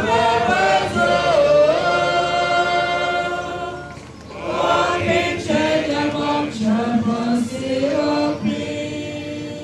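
A congregation singing a hymn together without instruments. There is a short break about four seconds in, then the singing resumes and grows fainter near the end.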